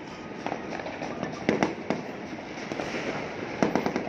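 New Year fireworks and firecrackers going off across the city: sharp bangs and pops over a continuous din, with a quick run of bangs near the end.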